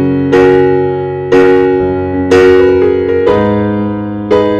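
Background piano music: a chord struck about once a second, each one fading away before the next.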